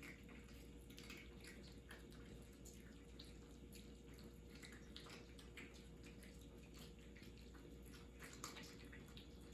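Cats eating: faint, irregular wet clicks of chewing and licking over a faint steady hum.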